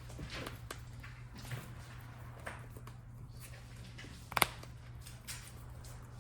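Faint rustles and light taps of trading cards being handled and set down, with one sharp tap about four seconds in, over a low steady hum.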